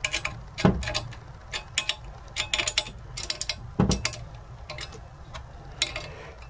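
Irregular metal clicks and clinks of a wrench on nuts and washers on a threaded rod, turned by hand to pull a star nut into a bicycle fork's steerer tube, with two duller knocks, about a second in and near the four-second mark.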